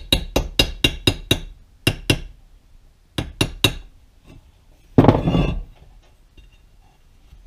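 Hammer tapping a steel punch to drive an oil seal into a Yamaha Warrior 350 clutch cover: a quick run of ringing metal taps, about four a second, then two more taps and a run of three. A louder clatter about five seconds in as the hammer is put down and the cover picked up.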